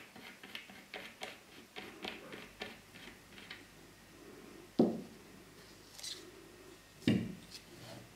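Handling noise from a Velbon Pole Pod EX monopod: a quick run of small clicks and rustles as its grip end and wrist strap are worked, then two sharp knocks a couple of seconds apart, the second as the monopod is laid down on the table.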